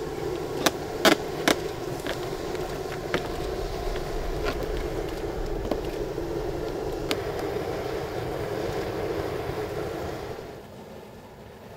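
Sharp wooden knocks and clacks as heated, split wooden stem strips for a birchbark canoe are bent around a form of wooden blocks on a plywood board, three loud ones about a second in, then scattered fainter ones, over a steady background hum that drops away near the end.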